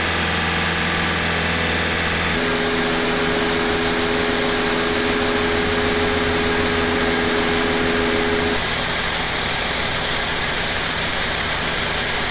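Engine running steadily, with its hum shifting abruptly in tone about two seconds in and again past eight seconds.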